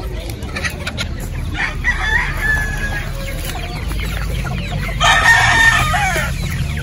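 Domestic chickens calling: a shorter call about two seconds in, then a loud rooster crow about five seconds in lasting over a second, over a steady low rumble.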